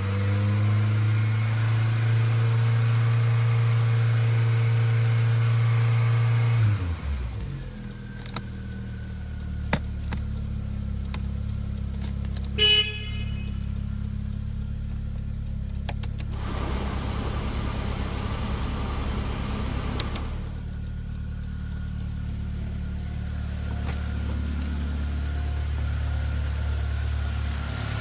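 A car engine held at high revs for about seven seconds, then dropping back to a steady idle. There is a short beep a little before the middle, and a few light clicks.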